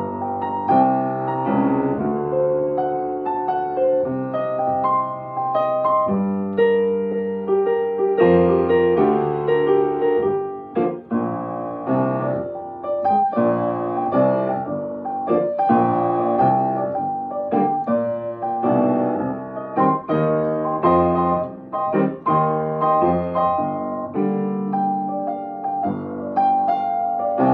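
Yamaha grand piano played solo, an instrumental passage of chords under a melody line.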